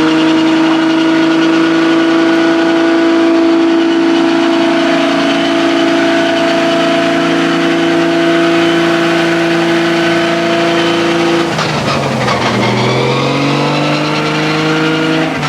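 Car engine held at steady revs for about eleven seconds with a slight rise in pitch, then the revs drop and climb back up over the last few seconds.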